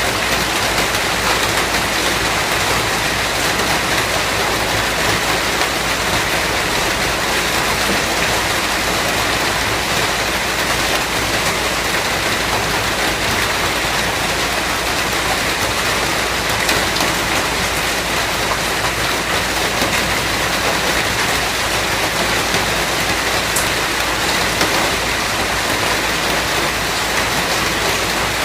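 Steady rain falling and pattering on surfaces, an even wash of noise without breaks.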